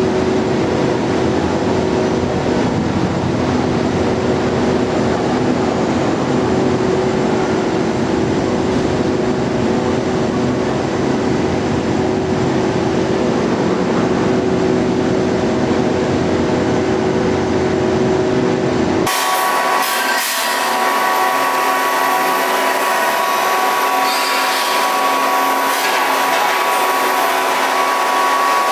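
Steady mechanical hum of structural steel processing line machinery, with a few held tones. About two-thirds of the way through it changes abruptly to a thinner, higher-pitched hum.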